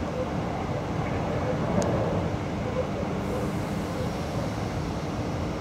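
Electric train running at speed, heard from inside the carriage: a steady rumble and hiss of the wheels on the rails with a faint steady hum, and a brief click about two seconds in.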